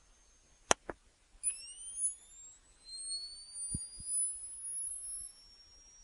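Off-camera photographic flash: two sharp clicks about a second in, then the high whine of the flash recharging, climbing steadily in pitch for about four seconds before dropping to a faint steady high tone near the end. Two soft low knocks come midway through the whine.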